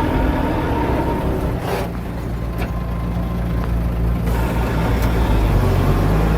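Heavy diesel engine of earthmoving machinery running steadily, getting a little louder in the second half, with a couple of faint clinks about two and three seconds in.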